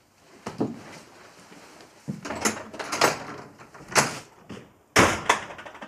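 A door being opened and closed: a series of knocks and thuds, the loudest a sharp bang about five seconds in.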